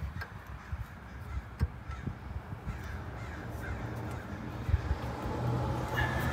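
Crows cawing repeatedly, with a few sharp knocks and clicks, and a steady low hum that comes in during the last couple of seconds.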